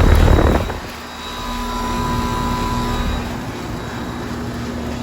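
2005 Carrier Cube 1.5-ton heat pump running in cooling mode: its Bristol H29B reciprocating compressor hums steadily along with the condenser fan. A loud rushing noise fills the first second.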